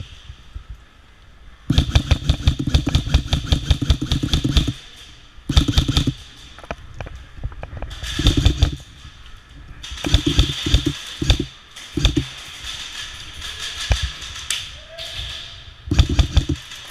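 Airsoft guns firing in rapid full-auto bursts: one long burst of about three seconds, then several shorter bursts.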